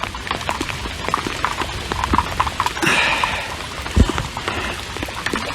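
Rain falling, its drops landing as many irregular taps, with a dull thump about four seconds in.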